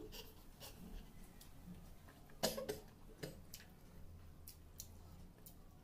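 Quiet eating sounds: fingers mixing rice on a steel plate and chewing, with scattered faint clicks and one short, louder sound about two and a half seconds in, over a low steady hum.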